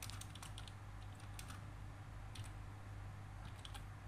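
Faint, irregular keystrokes on a computer keyboard as a short line of text is typed, over a steady low hum.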